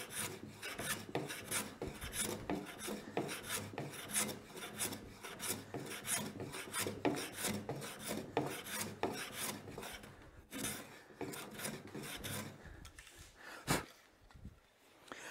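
Smoothing plane cutting along the edge of a hard maple board in quick, repeated strokes, the freshly sharpened blade rasping through the wood as it lifts thin shavings. The strokes thin out about twelve seconds in, and two single knocks follow near the end.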